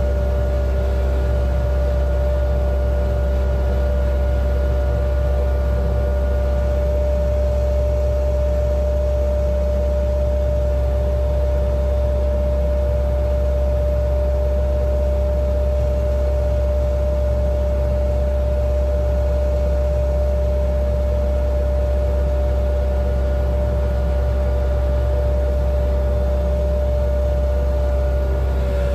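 Towbarless aircraft tractor's engine running steadily, heard from inside its cab: a deep constant rumble with a steady whine over it.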